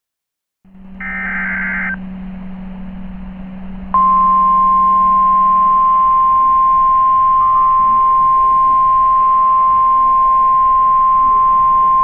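A NOAA Weather Radio alert sequence over radio hiss and a low hum. About a second in comes a short burst of warbling digital data tones, the SAME header. From about four seconds a loud, steady single-pitch tone begins: the 1050 Hz warning alarm tone that announces a new warning.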